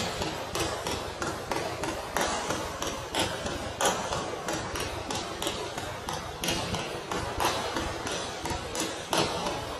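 Rapid punches landing on a large round padded punch target: a quick, uneven run of sharp smacks, about three a second, some harder than others.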